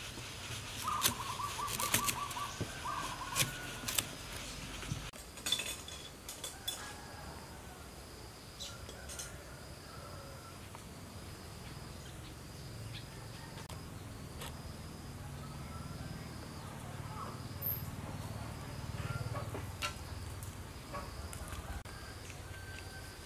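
Outdoor birdsong and insect ambience: a bird's quick run of repeated notes about a second in, then a high chirp repeating about every three quarters of a second. A few sharp snaps and clicks come in the first seconds as bananas are broken off the bunch.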